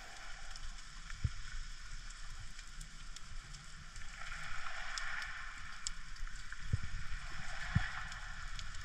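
Underwater ambience picked up by a camera in its housing: a steady hiss with scattered faint clicks, and a few dull low thumps.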